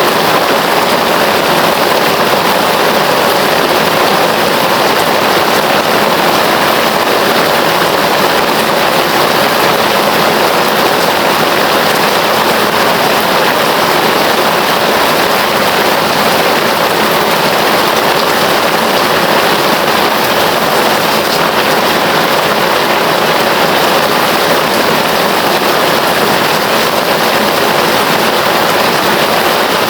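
Heavy rain falling steadily, a loud even hiss of rain without any change or distinct drops standing out.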